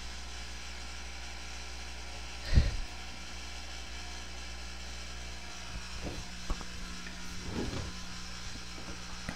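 Steady electrical hum and hiss from a low-quality recording setup, with one soft thump about two and a half seconds in and a few faint knocks later.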